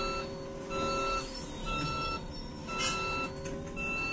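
Electronic warning beeper sounding in even, half-second beeps about once a second, over a steady low hum.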